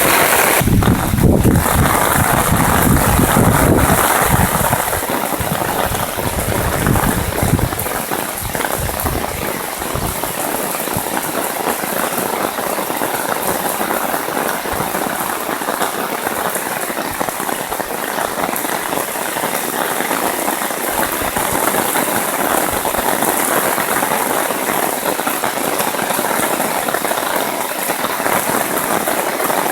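Heavy downpour: dense, steady rain pattering and crackling on surfaces, with a low rumbling under it for the first several seconds.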